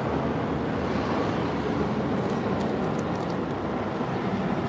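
Steady traffic noise from a busy city street: a continuous low hum of passing cars, with no single event standing out.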